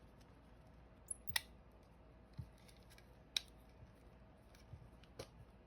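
Half a dozen sharp, light clicks and taps of small plastic model-kit parts and tools being handled and fitted together, spaced irregularly over a faint background.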